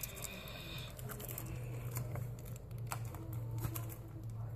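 Cardboard trading-card box being handled and pried at by hand: scattered clicks, scrapes and crinkles of packaging that is hard to open, over a steady low hum.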